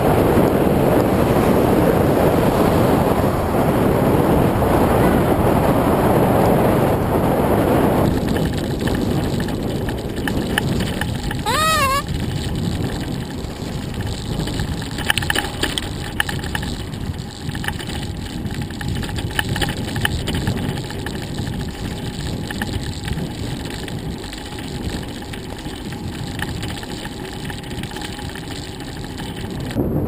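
Wind rushing over the microphone and the rattle and clicks of a bicycle rolling over the road. The wind is loudest in the first third, then eases. About twelve seconds in, the cockatoo riding on the handlebars gives one wavering call.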